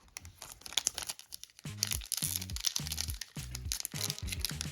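Crinkly plastic wrapper of a trading-card pack being torn open and handled, a dense run of crackles. Background music with low stepped notes comes in about a second and a half in.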